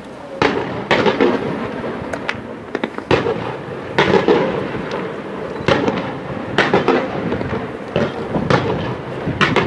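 Aerial fireworks display: a string of sharp bangs from shells bursting, about one a second, with crackling between them.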